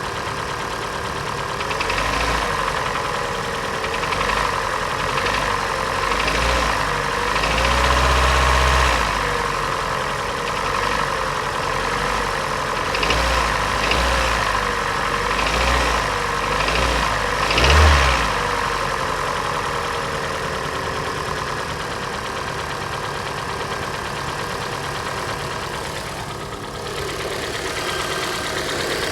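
Hyundai/Kia G4NA four-cylinder petrol engine idling and being revved up and down several times, with the loudest rev just before the last third, then settling back to idle. It has a piston knock that comes from scuffed, scored cylinder walls, worst in the third cylinder, a sign that the engine needs a rebuild.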